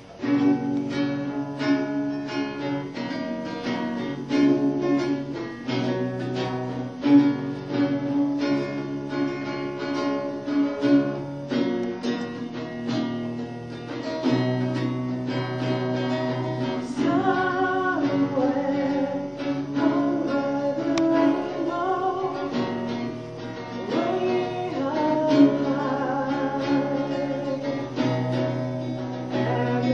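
Acoustic guitar strumming chords, with a voice singing along, most clearly in the second half.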